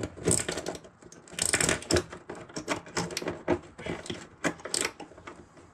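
A plastic 12-volt DC socket and a USB charging port being pushed and worked into holes cut in a wooden panel, making irregular clicks, taps and short scrapes of plastic against wood.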